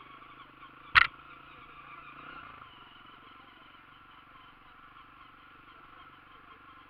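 Four-stroke single-cylinder Honda CRF dirt bike engine running steadily under way on a dirt trail, its pitch rising briefly and dropping back around two seconds in. A single sharp, loud knock about a second in.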